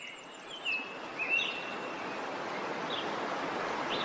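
Birds chirping now and then over a steady rushing noise of falling water from a waterfall.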